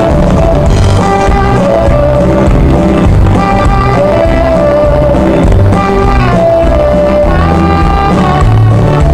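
A live country band playing loud amplified music, with drums, bass guitar, keyboards and acoustic guitar. The music runs on without a break.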